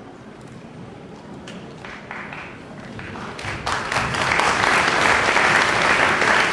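Audience applauding: a few scattered claps at first, swelling about three and a half seconds in into loud, steady applause.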